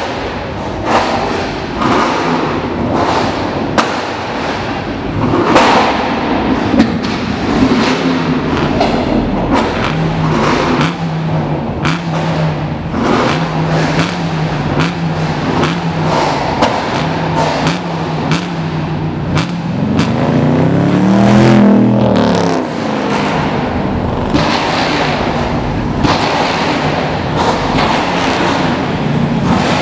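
Cars driving past with engines running, mixed with music and many sharp thumps; about twenty seconds in, an engine revs up and back down.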